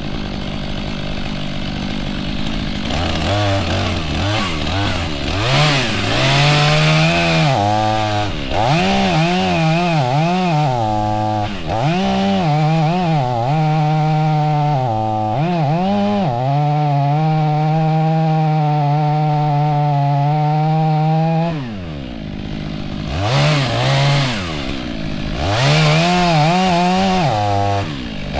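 Stihl MS 500i fuel-injected two-stroke chainsaw revved up and down repeatedly, then held at high revs for about five seconds as it cuts into a tree; it drops off briefly a little past two-thirds of the way through and revs up and down again near the end.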